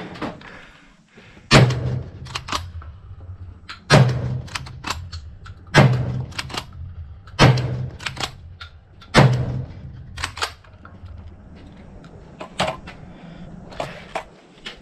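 Adler B230 12-gauge straight-pull shotgun firing five rounds of SG buckshot, about two seconds apart. Each shot is followed by the sharp clack of the straight-pull action being worked back and forth to chamber the next round.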